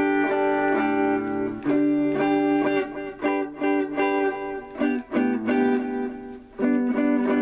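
Electric guitar on a clean amp tone playing voicings of a G chord: two ringing chords, then a run of short picked notes, then another held chord near the end.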